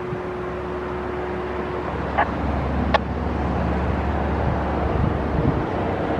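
Federal Signal STL-10 outdoor warning siren sounding its steady full-alert tone, which fades out about two seconds in and leaves a low rumble. There are two sharp clicks, and the siren tone comes back faintly near the end.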